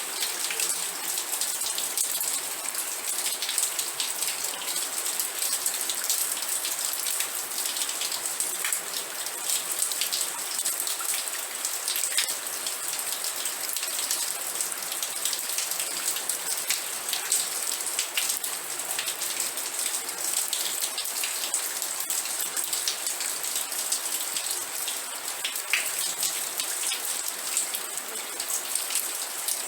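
Steady rain falling, a dense hiss of many small drop patters on a surface.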